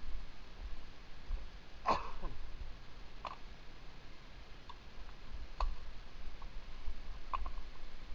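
Mountain bike rolling over a dirt singletrack: a few sharp clicks and rattles, the loudest about two seconds in, over low bumping rumble.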